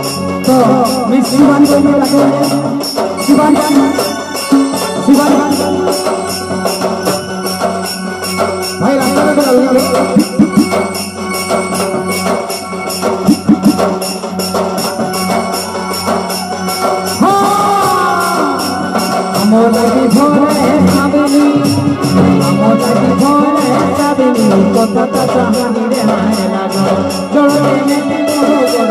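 Live Sambalpuri orchestra music: a fast, steady drum and jingling percussion beat under a melody line.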